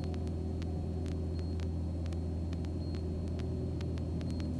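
American Champion Super Decathlon's engine and propeller droning steadily in inverted flight, with a run of faint, evenly spaced electrical clicks over the drone.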